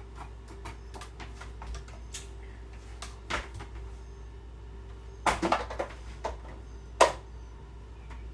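Light clicks and knocks of kitchen items being handled on a counter, with a few sharper knocks about three seconds in, a quick cluster a little after five seconds and the loudest single knock near seven seconds. A faint steady hum runs underneath.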